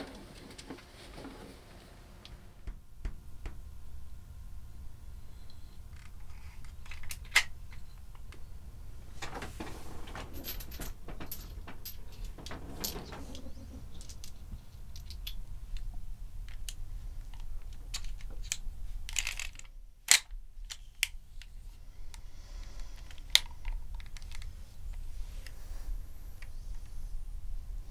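A revolver being handled: scattered sharp metallic clicks and small rattles, with a few louder clicks spread through, over a low steady hum.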